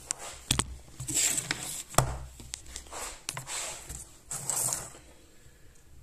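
Handling noise: rustling and scraping with several sharp clicks as things are moved about on a hard counter, dying down near the end.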